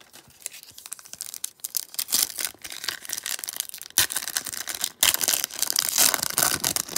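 Foil wrapper of a baseball card pack crinkling and tearing as it is opened by hand, with cards shuffled and tapped. It gets louder about two seconds in and is loudest from about five seconds in.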